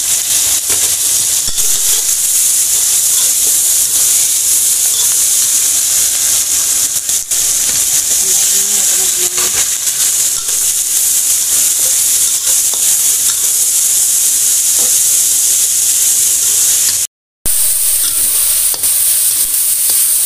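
Stir-frying: vegetables and sliced beef sizzling in hot oil in a stainless steel wok, with a metal spatula scraping and clicking against the pan as it stirs. A split-second gap of silence near the end.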